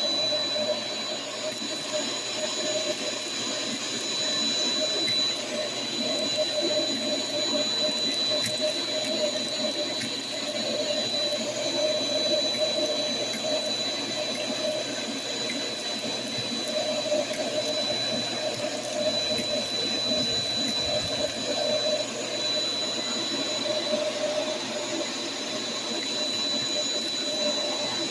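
Shop vac running steadily with a high whine, its crevice tool sucking up aluminum soda can tabs and beads, which click and rattle now and then as they go up the hose.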